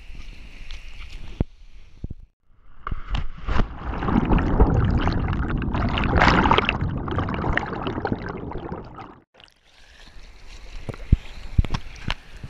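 A cliff jump into a river heard from a camera worn by the jumper. There is a light rush of air, a short silence as he goes in, and then loud underwater churning of bubbles with many crackling pops for about six seconds. About nine seconds in he surfaces into the rush and splash of the river current.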